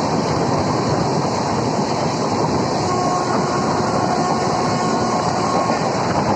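Passenger or express train running through a station at full speed without stopping: a loud, steady rush of wheels on rail, with faint thin steady tones above it.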